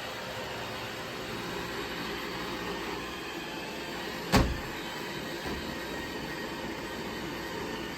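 iRobot Roomba robot vacuum running with a steady motor and brush hum, with one sharp knock about halfway through.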